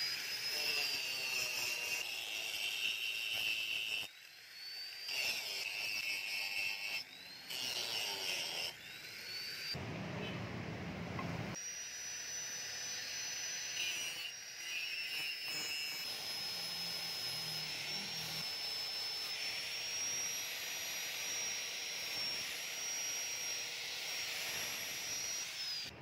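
Angle grinder with an abrasive disc grinding a stainless steel knife blank: a high motor whine over the hiss of the disc on metal. In the first ten seconds the whine sweeps up several times as the grinder spins up again, with short breaks; after that it runs steadily and drops right at the end.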